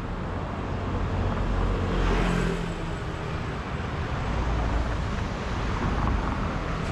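Urban road traffic: cars and a van passing, a steady rumble that swells about two seconds in.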